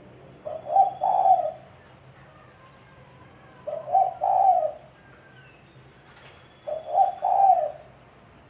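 Spotted dove (tekukur) cooing, three call phrases about three seconds apart. Each phrase is a short note or two followed by a longer coo.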